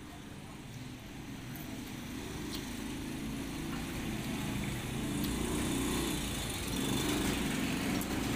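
A motor vehicle's engine running, a steady low rumble that grows louder over several seconds and then holds.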